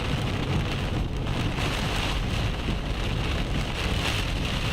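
Heavy rain and wind lashing a moving storm-chase vehicle, heard from inside, over a steady low road rumble.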